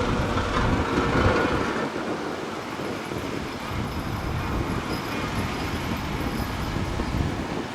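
Heavy road-construction machinery running on gravel: a steady diesel-engine and mechanical noise, a little louder in the first couple of seconds.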